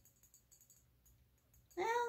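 Quiet room tone with a few faint small ticks, then about 1.7 seconds in a woman says a drawn-out "Well".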